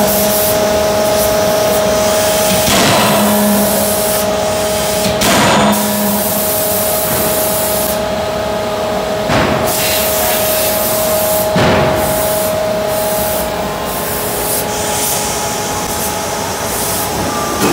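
Anyang 31.5 kJ CNC die-forging hammer running while hot-forging a billet: a loud, steady mechanical hiss and hum with several short rushing surges a few seconds apart. A held tone in the din stops about 14 seconds in.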